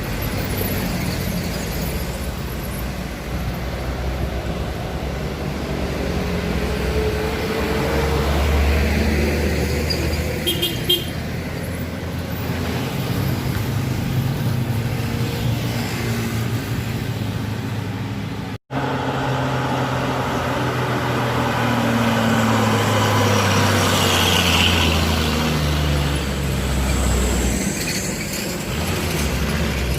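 Heavy vehicle engines running hard on a steep climb among passing traffic, their pitch slowly rising and falling. A short high beep comes about eleven seconds in, and the sound cuts out for an instant a little past halfway.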